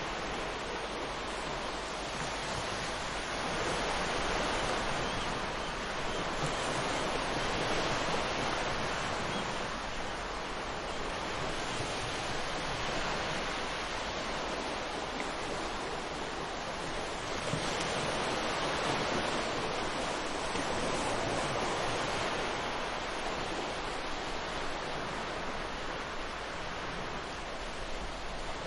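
Ocean surf, waves washing in one after another in slow swells that rise and fall every few seconds.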